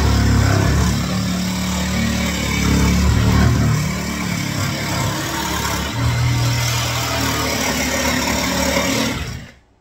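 Makita cordless jigsaw cutting a sink cut-out through a laminated chipboard kitchen worktop, running steadily under load. It stops abruptly near the end.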